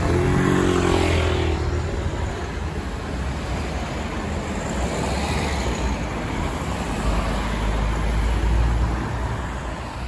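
Road traffic on a city street: cars and vans running past, with a vehicle engine's note clear in the first second or two and a heavier low rumble later on.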